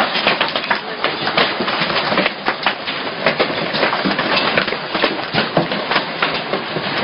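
Hailstones pelting down, a dense steady clatter of many small hard impacts.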